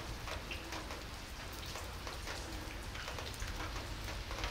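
Rain falling on pavement: a steady hiss dotted with many small ticks of drops.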